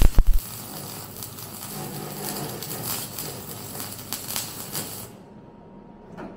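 MIG welder laying a bead on steel car bodywork. It starts with a few loud pops as the arc strikes, crackles and hisses steadily, and cuts off suddenly about five seconds in.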